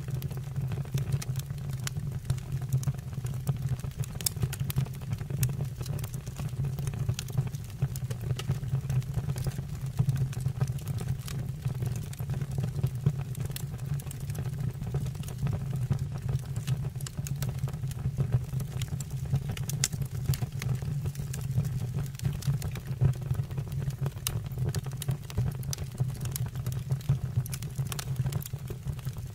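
Wood fire burning in a fireplace: a steady low rumble of the flames with frequent sharp crackles and pops of the burning wood.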